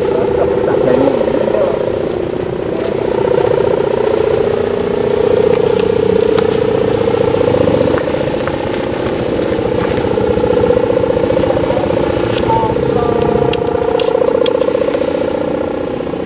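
Kite hummer (sendaren) with a tuned mica strip, the 'gerr' type, buzzing continuously in the wind on a large kite flying high: a steady drone that swells and eases a little.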